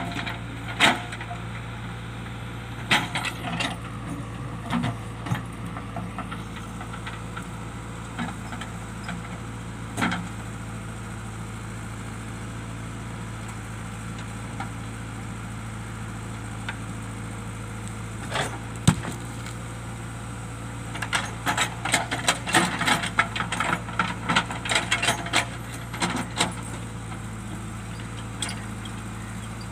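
JCB digger's diesel engine running steadily, with repeated sharp knocks and clatters of rock against rock and the steel bucket; a dense run of clattering comes about two-thirds of the way through.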